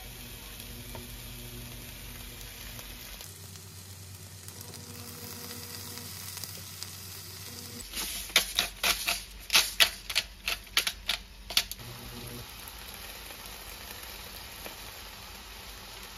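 Eggplant slices sizzling in a frying pan. Midway comes a quick run of about a dozen sharp clicks and taps of a utensil against the pan, the loudest sounds, lasting about four seconds.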